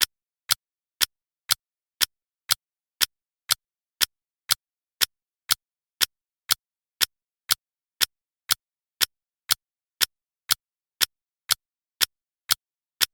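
Clock ticking steadily at two sharp ticks a second, with silence between the ticks.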